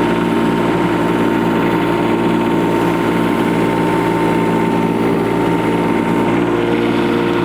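Kubota U10-5 mini excavator's three-cylinder diesel running steadily while the machine works its hydraulics to back over a trench. A thin high whine rides over the engine and stops about six seconds in.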